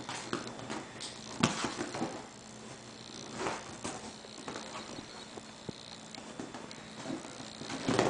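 Goat kids' small hooves thumping and scuffing on leather sofa cushions as they jump and butt heads, with a sharp thump about a second and a half in and another about three and a half seconds in.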